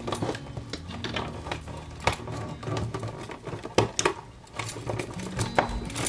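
Irregular clicks and knocks of duplex outlets and their wires being handled and pushed into a plastic electrical box, the loudest about two and four seconds in, over background music.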